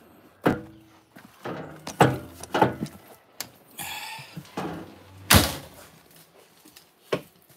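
A series of knocks and thumps as someone steps up into a camper, with one loud thud about five and a half seconds in, typical of the camper door being pulled shut.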